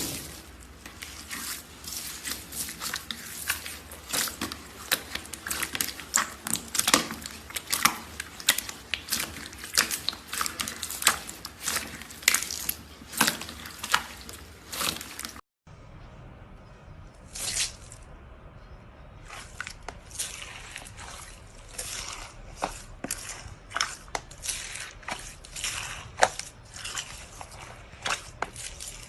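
Slime being squished and pressed by hand, making rapid wet clicks and pops. The sound breaks off briefly about halfway through, then goes on with sparser pops.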